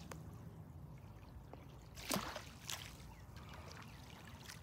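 Faint outdoor background noise with a steady low rumble, broken about two seconds in by one brief sharp noise and a smaller one just after.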